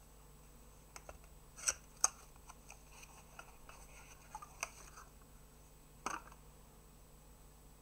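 Small cardboard box being opened by hand: a few sharp clicks and snaps of the card and its tuck flap, with light rustling between them, and one last knock about six seconds in.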